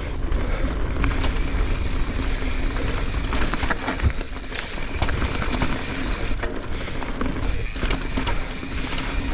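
Mountain bike riding fast down a dirt trail: wind rumbling on the rider's camera microphone, with tyres on dirt and scattered knocks and rattles from the bike over bumps.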